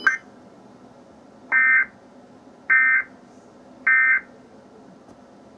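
Emergency Alert System end-of-message data burst (the "NNNN" code) sent three times: three identical short bursts of buzzing digital data tones, each about a third of a second long and a little over a second apart. It signals the end of the alert.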